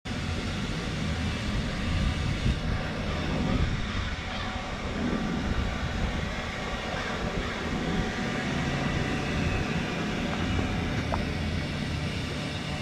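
Sea Ray 320 Sundancer's twin 350 Mag MPI V8 inboard engines running steadily at low speed, a continuous low rumble.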